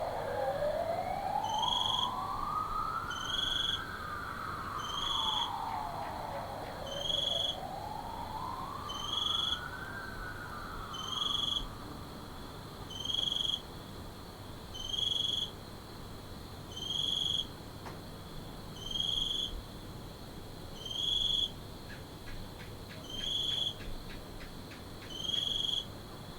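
Distant police siren wailing, rising and falling slowly, two full sweeps that fade away about halfway through. Throughout, a cricket chirps steadily, one short chirp about every two seconds.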